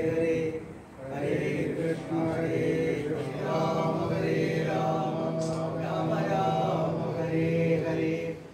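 Voices chanting a devotional mantra in long, melodic phrases, with a brief pause about a second in.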